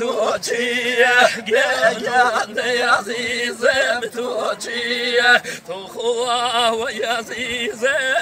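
Men singing a Hawrami (Gorani) Kurdish folk song, the voice line held in long phrases with a fast wavering, heavily ornamented pitch.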